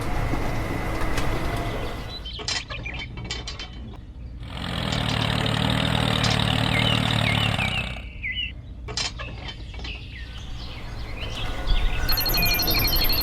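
A small machine's motor and mechanism running, with clicks and rattles. A louder stretch with a low hum comes from about four and a half to eight seconds in. Short high chirps are heard now and then.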